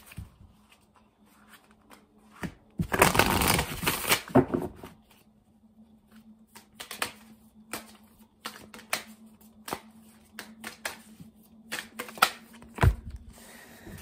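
Deck of oracle cards being shuffled by hand. A dense rush of card noise comes about three seconds in and lasts nearly two seconds, followed by scattered light taps and clicks as the cards are handled.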